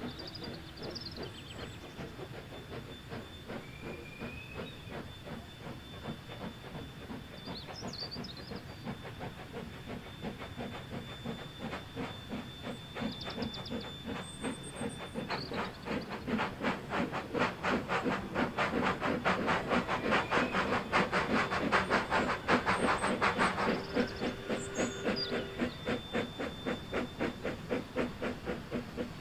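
Narrow-gauge steam locomotive working a train in the distance: a quick, even chuff of exhaust beats that grows louder from about halfway and eases a little near the end.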